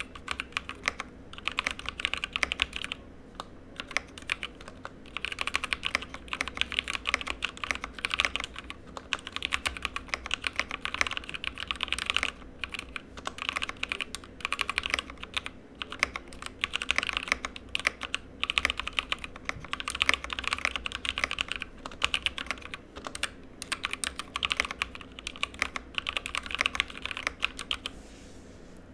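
Fast typing on a GK61 mechanical keyboard with Kailh Cream linear switches and ABS keycaps: a steady run of sharp keystroke clicks with a few short pauses, stopping near the end.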